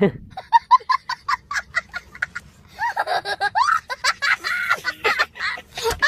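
A small child's high-pitched laughter: a quick run of short cackling bursts, then longer wavering squeals from about three seconds in.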